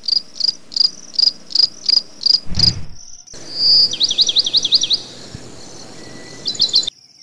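Crickets chirping: short high chirps about three a second, then a quicker trill of about six rising chirps a second about four seconds in, and a few more chirps near the end. A brief low thump about two and a half seconds in.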